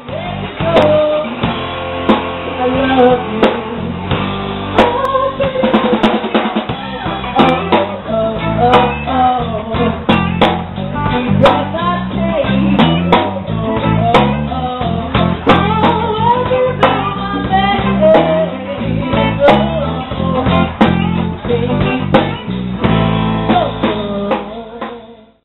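Intro music: a rock song with electric guitar and a drum kit keeping a steady beat, fading out at the end.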